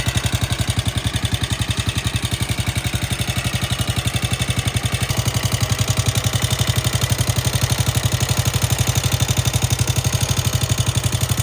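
Italika FT150 single-cylinder four-stroke engine idling with a steady, even beat and a strange mechanical noise that sounds like valve clatter but persists after the valves were adjusted; the mechanic suspects the lower rocker arms or the camshaft.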